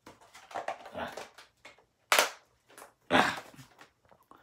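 Handling and movement noises close to the microphone: scattered rustles, a sharp click about two seconds in, and a louder clatter about a second later.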